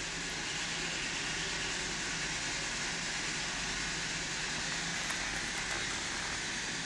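Steady hiss with a faint low hum: room tone in a quiet concrete cell, with a couple of faint clicks about five seconds in.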